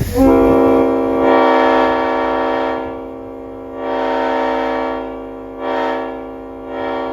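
Multi-chime locomotive air horn sounding a chord on compressed air, coming in with a rush of air, then a long held blast that dips and swells, then two short blasts near the end.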